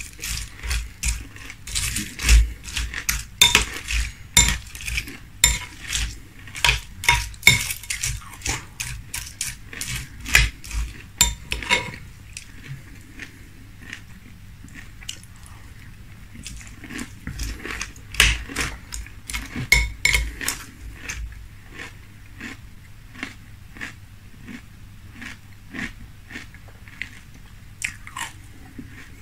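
Zucaritas frosted corn flakes in milk being crunched and chewed close to the microphone, with a metal spoon clinking and scraping in a glass bowl. The crunching comes in two spells, the first longer and the second about two-thirds of the way through, with sparser clicks between and after.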